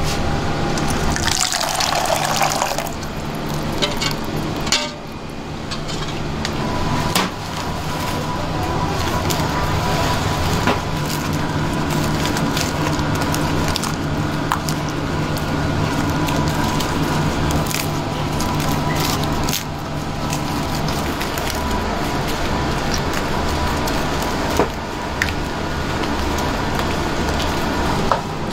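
Thick batter pouring from one steel bowl into another about a second in, then wet sloshing and squishing as baguettes are pressed into the batter, with scattered clicks, over a steady machine hum.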